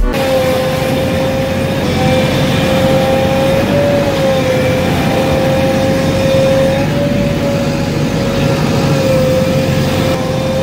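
JCB backhoe loader's diesel engine running steadily with a whine that wavers slightly in pitch, over the rush of water churned up as the machine works in the river.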